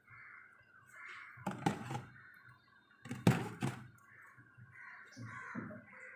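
Food storage boxes knocking and clunking as they are handled and set down in a fridge. There are two clusters of knocks, the second about a second and a half after the first.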